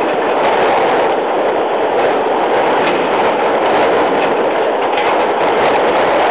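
Safari game-drive vehicle driving, a steady loud rumble and rattle of the moving vehicle.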